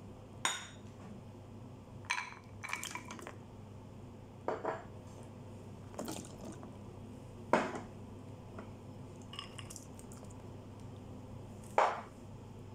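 Scattered clinks and knocks of ceramic bowls and dry ingredients against an electric pressure cooker's inner pot as the ingredients are tipped into its water, about eight separate sharp sounds, over a low steady hum.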